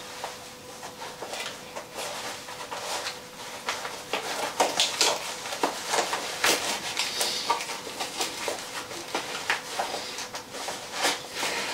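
Handling noise from a holstered handgun being shifted along a nylon rigger's belt: an irregular run of scrapes, rustles and soft clicks from the holster, belt and shirt fabric.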